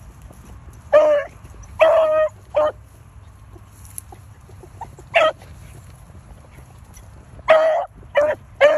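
Hound barking while trailing a rabbit: short, ringing barks in little clusters of two or three, with a few seconds' lull in the middle.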